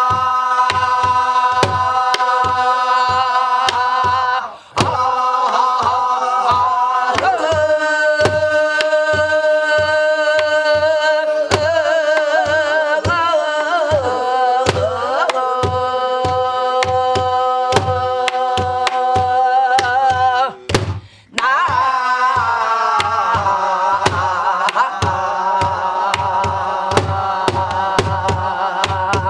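A woman singing pansori, holding long melismatic vocables ("aha, hahaha, eo-heu, eu-eu-eu, na-a") with a wavering pitch. Regular strokes on a buk barrel drum go on throughout, and twice the voice breaks off briefly for breath.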